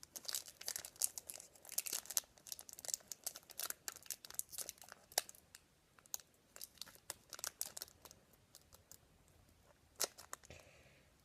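Wrapper of a footy trading card pack crinkling and crackling as fingers try to tear it open, a dense run of crackles that thins out, with one sharper snap near the end.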